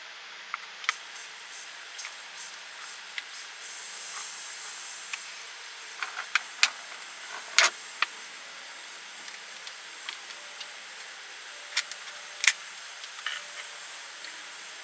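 Steady hiss with scattered sharp clicks and taps, the loudest a few short knocks in the middle and near the end.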